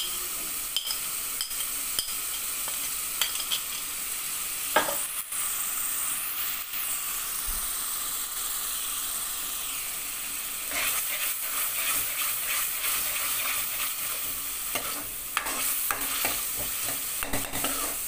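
Tomato-onion masala sizzling in hot oil in a metal kadai while it is fried down. A metal spoon clicks and scrapes against the pan as it stirs, with the stirring busier in the second half.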